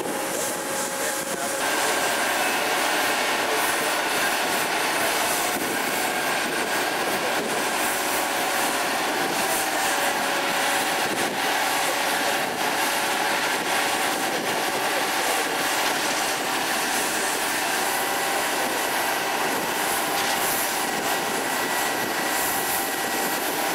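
Steady mechanical drone of construction-site machinery, with a few faint steady tones in it.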